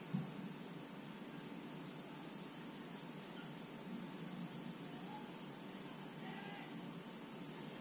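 Steady, high-pitched insect chorus droning without a break, with one soft low thump just after the start.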